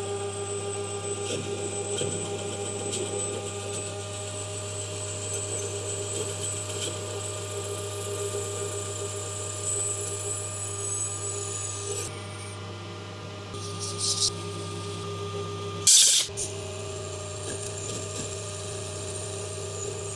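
Metal lathe running steadily at about 305 RPM with its gear hum, while a 2 mm parting tool is fed by hand into a spinning alloy-steel bushing blank to cut it off. A thin high whine falls in pitch and stops about two-thirds of the way through, and a short loud clank comes late on.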